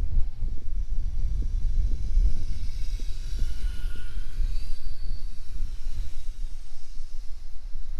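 Electric motor whine of a Kyosho Blizzard RC snowcat driving through snow, rising and then falling in pitch around the middle, over a steady low wind rumble on the microphone.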